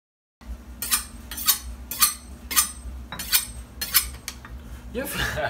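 Kitchen knife being sharpened on stone: about seven quick scraping strokes of the blade, roughly two a second, over a steady low hum.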